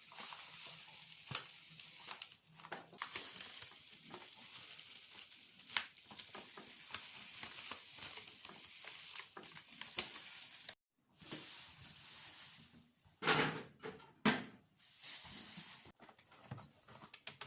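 Coffee trickling out of its packet into a jar, a fine steady hiss with small ticks and the packet rustling as it is shaken out. It stops abruptly about two thirds of the way through, and a few louder rustles or knocks follow.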